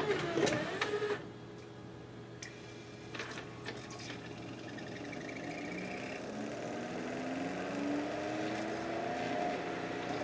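LaserDisc tray mechanism of a Pioneer LaserDisc/DVD combo player drawing the disc in, a motor whirring with clicks for about the first second. A few mechanical clicks follow, then from about five seconds in the spindle motor spins the LaserDisc up with a rising whine.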